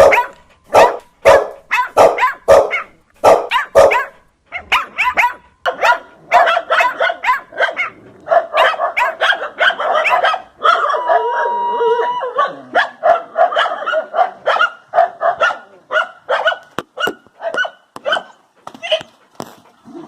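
Dogs barking loudly and repeatedly: sharp single barks about two a second at first, then faster, overlapping barking, with a short steady held tone about halfway through.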